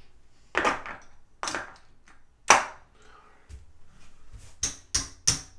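Casino chips clicking against each other as they are handled and stacked on a craps table: single sharp clacks about a second apart, the loudest near the middle, then three in quick succession near the end.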